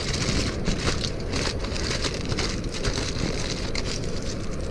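Aluminium foil crinkling and crackling in the hands as it is folded and crimped around a potato, in many quick irregular crackles, over a steady low rush.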